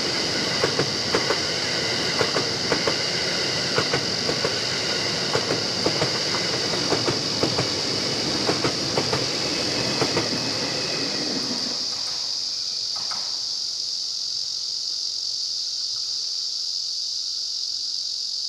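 E001 series 'Train Suite Shiki-shima' passing, its wheels clicking in pairs over the rail joints. The rumble drops away about twelve seconds in as the last car goes by. A steady high-pitched drone continues throughout.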